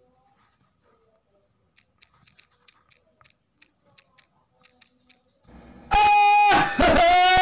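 About a dozen soft key-press clicks from a phone's on-screen keyboard as a word is typed. About six seconds in they give way to loud, high-pitched laughter from a man.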